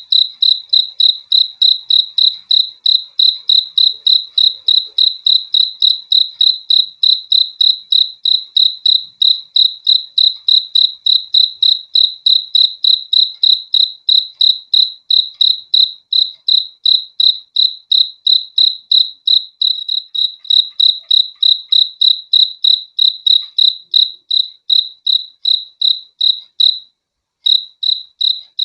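A cricket chirping in a steady, even rhythm, about three high-pitched chirps a second, all at one pitch. It breaks off briefly near the end and then resumes.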